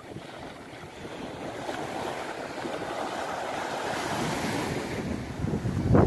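Sea waves washing onto the shore, the surf swelling gradually and surging loudest near the end, with wind buffeting the microphone.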